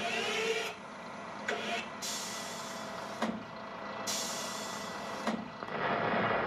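A series of sharp hissing bursts that start and stop abruptly, the two longest about a second each, with a couple of short knocks between them. Near the end a louder, steady rushing noise sets in.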